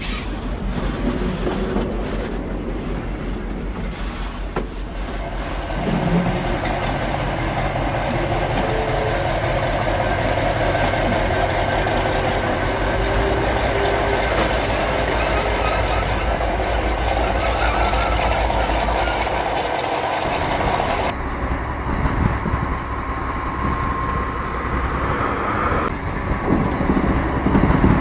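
Model freight train of hopper wagons rolling along the layout's track: a steady rumble and clatter of small wheels on rails, with a higher hiss that drops away about three-quarters of the way through.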